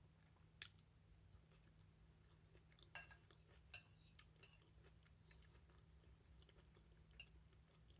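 Quiet chewing of food with a few soft wet mouth clicks, the clearest about three seconds in, over a faint low hum.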